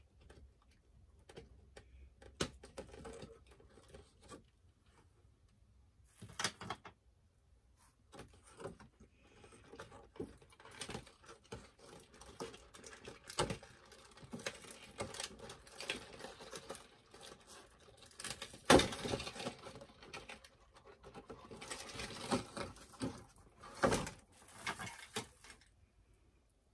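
Hands unpacking a doll's packaging and accessories: plastic and cardboard rustling and crinkling, with many small clicks and knocks, and louder bursts of rustling a few times.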